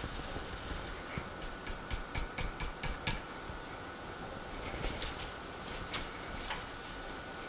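Light taps and clicks of a nonstick frying pan and cooking utensil as an omelette is shaken and rolled: a quick run of about six sharp clicks, roughly three a second, starting about one and a half seconds in, then a few scattered taps a couple of seconds later. A faint steady high hum runs underneath.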